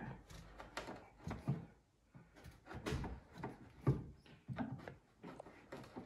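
Wood chisel being worked into oak by hand: a series of irregular short knocks and scrapes, several per second at times with pauses between.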